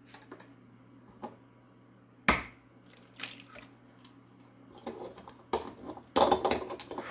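Kitchen handling sounds as a metal muffin tin with oil goes into a hot oven: scattered light clicks, one sharp knock about two seconds in, and a burst of clattering near the end, over a low steady hum.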